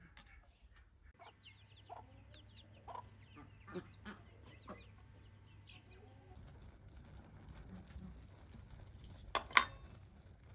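Chickens clucking in a series of short calls, with one sharp knock near the end.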